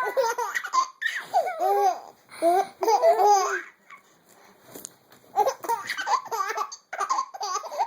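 A baby laughing in high-pitched bouts, breaking off about four seconds in and then laughing again in quick bursts.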